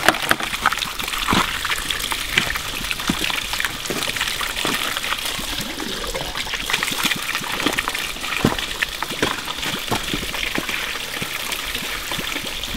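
Water running and trickling steadily, with scattered small knocks and splashes. Near the end, water is poured from a bottle into a wheelbarrow of dry concrete mix.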